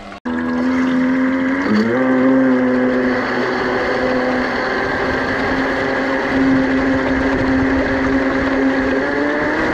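Scratch-built RC model speedboat's motor running under way, heard close up from a camera inside the boat's cockpit over the rush of water: a steady whine that starts abruptly, rises in pitch about two seconds in, then holds and edges up again near the end.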